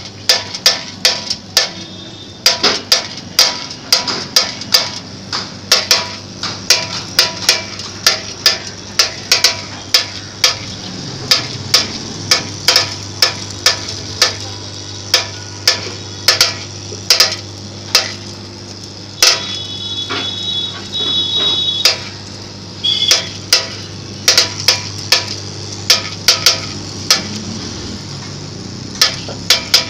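Vibratory bowl feeder running with a load of steel balls: a steady low hum from its electromagnetic drive under a continuous rattle of the balls jostling around the bowl. Sharp metallic clicks come irregularly, about one or two a second.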